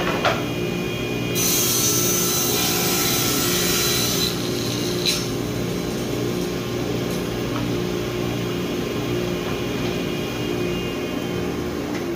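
Table saw running steadily, its blade ripping through a wooden panel. The cut is loudest for about three seconds starting just over a second in, with a brief sharper bite a little later, and the saw then runs on with no load.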